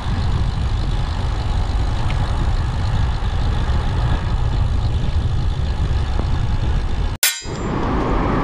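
Steady traffic and wind rumble on the microphone while cycling beside a road. A little after seven seconds the sound drops out for a moment, then a sharp click, and the noise resumes.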